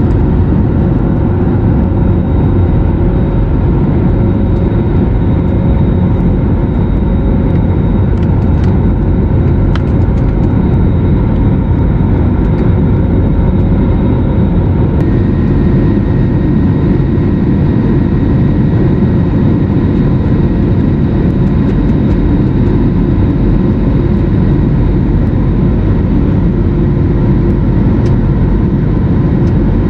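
Airbus A320's jet engines and rushing air heard inside the cabin during the climb after takeoff: a steady, loud, deep roar with faint steady whines above it. A slightly higher whine joins about halfway through.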